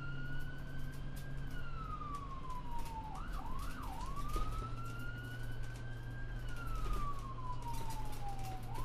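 A siren wailing. Its pitch climbs and sinks slowly, with two quick yelps about three seconds in. A low steady hum and a light crackle run underneath.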